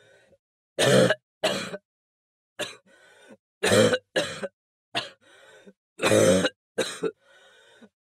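A person coughing in fits: two or three hard coughs, then a raspy breath in, the pattern repeating about every two and a half to three seconds, three times over.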